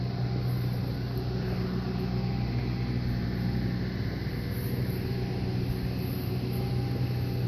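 A steady mechanical hum at constant speed, like a running motor or fan, with no change over the whole stretch.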